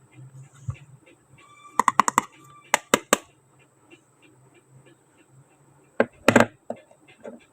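Small plastic toy kitchen pieces clicking and knocking as they are handled: a quick cluster of clicks about two seconds in, a few more sharp taps just after, and two louder knocks near six seconds.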